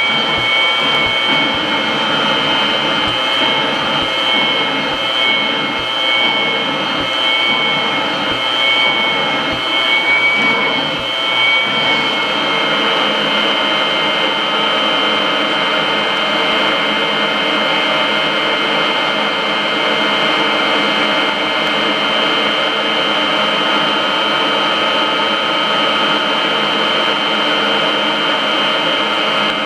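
Kirby upright vacuum cleaner running with its hose attached: a loud, steady motor whine. For about the first twelve seconds the pitch wavers and irregular low knocks come through, then the whine settles and holds even.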